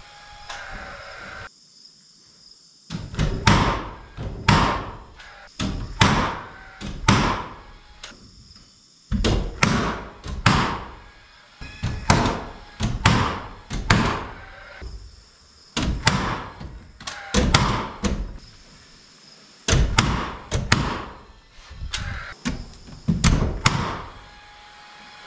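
Nailing into wood framing: a run of sharp, regular strikes, about one a second, each ringing out briefly, with a couple of short pauses.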